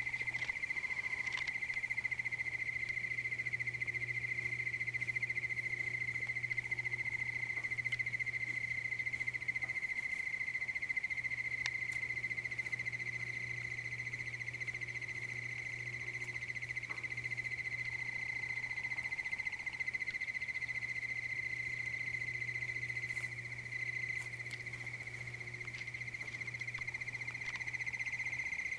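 Insects trilling in a steady, unbroken high-pitched chorus over a low steady hum.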